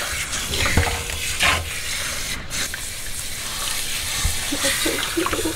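Kitchen sink hand sprayer spraying water steadily over a wet puppy and splashing into a stainless steel sink.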